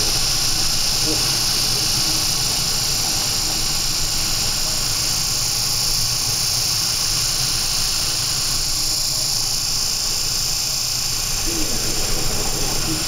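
Steady rushing noise of storm wind and breaking seas heard aboard a bulk carrier, with a rough low rumble underneath. Faint voices come in near the end.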